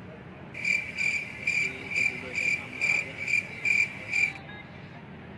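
Cricket chirping sound effect: about nine evenly spaced high chirps, a little over two a second, stopping about four seconds in.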